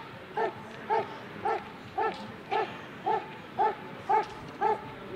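German Shepherd barking steadily and rhythmically at the protection helper, about two barks a second in an even, unbroken series.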